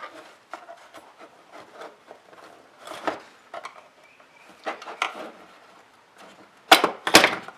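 Small flathead screwdriver scraping and prying at the plastic release tabs of a switch housing, with scattered light clicks and two louder sharp clicks near the end.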